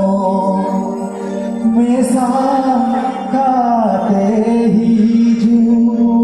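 Live Santali song with band accompaniment played through a PA: a voice sings long held notes that bend in pitch over the music.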